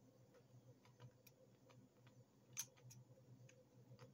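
Faint, irregular small clicks and taps from fingers and toothpicks handling a plastic cassette shell, the sharpest about two and a half seconds in, over a low steady hum.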